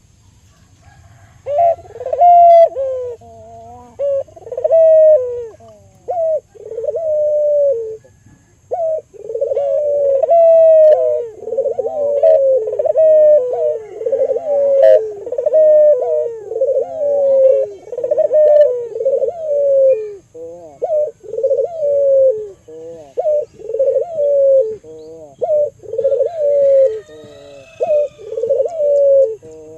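Albino puter dove (barbary dove) cooing over and over in short falling phrases, sparse for the first few seconds and then almost without a break.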